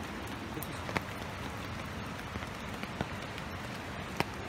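Steady wash of rushing water from the monsoon river and wet bank, with three sharp clicks about one, three and four seconds in, the last the loudest.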